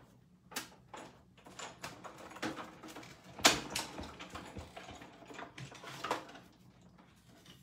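Stampin' Cut & Emboss hand-cranked die-cutting machine running a die and paper through its rollers: a string of irregular clicks and clattering knocks, loudest about three and a half seconds in.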